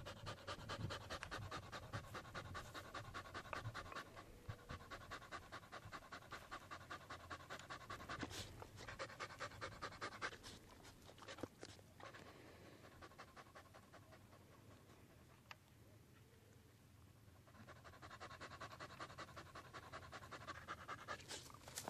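A Brittany bird dog panting fast and steadily, a quiet rhythmic huffing of about three or four breaths a second. The panting fades out about twelve seconds in and picks up again near eighteen seconds.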